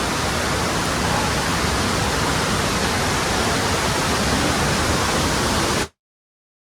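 Tirathgarh waterfall's falling water making a loud, steady rush of noise, which cuts off suddenly just under six seconds in and leaves silence.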